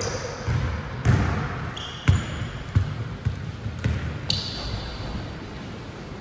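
Basketball being dribbled: irregular thuds roughly every half second to a second, with a couple of short high squeaks.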